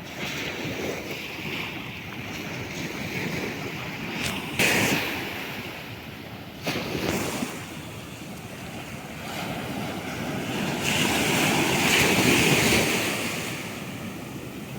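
Sea waves washing onto the shore, the surf rising and falling, with wind buffeting the microphone. There are two sudden surges about four and a half and six and a half seconds in. A larger swell builds after ten seconds and then fades.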